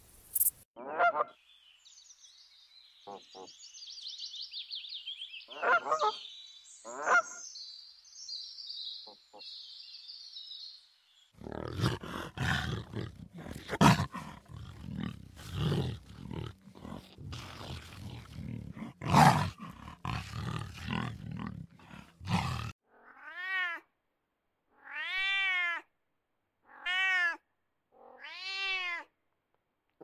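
A run of different animal sounds: a few short calls over high chirring, then a long, loud, rough stretch, and finally about four drawn-out meowing calls from a cat, each rising and falling in pitch, roughly a second and a half apart.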